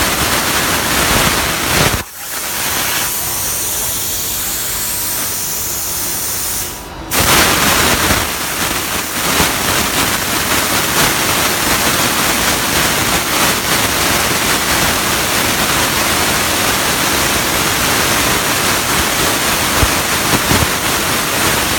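CNC plasma cutter torch cutting, a loud steady hiss. It drops away about two seconds in, leaving a thinner high hiss, and starts again about seven seconds in.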